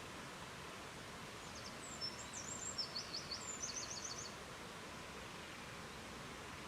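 Steady noise of flowing river water, with a small bird singing one short phrase of high notes, a few slurred notes then a quick series, about two seconds in.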